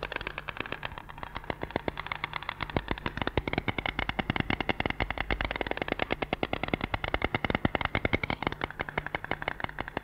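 White storks clattering their bills: a rapid, dense run of wooden-sounding clacks, with several birds' rattles overlapping.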